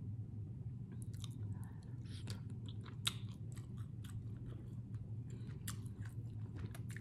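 A person chewing food: a string of short, wet mouth clicks and smacks over a steady low hum.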